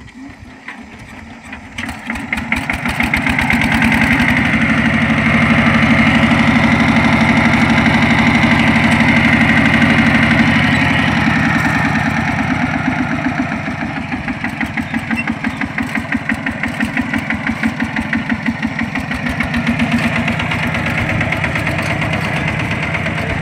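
Kubota two-wheel walking tractor's single-cylinder diesel engine picking up in the first two seconds, then running loud and steady with a rapid firing beat, easing back a little about halfway through. It is working to drive the mired tractor out of the rice-field mud.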